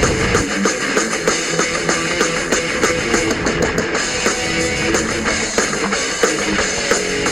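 Rock music with guitar and drums. The deep bass thins out about half a second in and comes back near the end.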